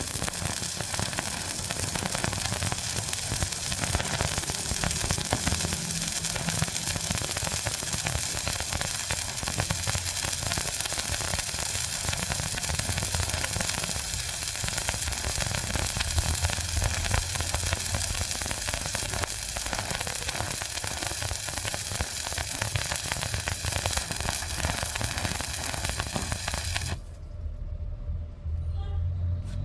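Stick-welding arc crackling and sizzling steadily as an electrode burns along a bead, stopping about 27 seconds in when the arc is broken.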